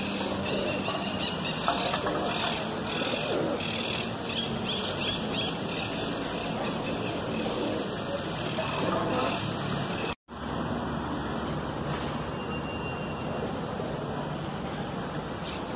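Steady outdoor background noise around a feeding flock of pigeons, cut off for an instant about ten seconds in.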